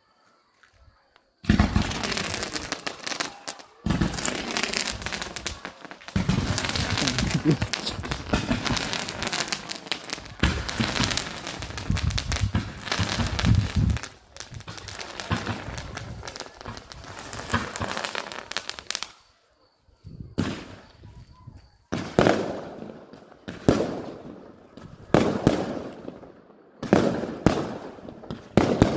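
Fireworks display: after a second and a half of near silence, a dense, continuous run of bangs and crackling for about seventeen seconds, then separate shell bursts going off about every second or so.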